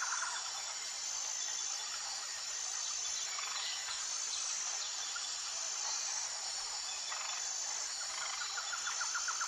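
Outdoor insect chorus: steady high-pitched chirring. An animal's rapid pulsed trill sounds at the very start and again near the end.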